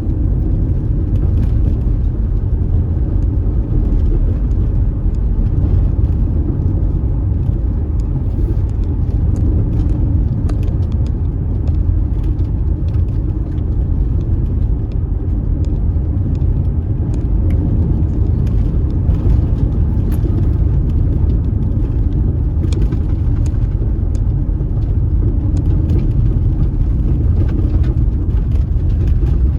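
A car driving steadily on a dusty unpaved road: a constant low rumble of tyres and engine, with scattered light ticks over it.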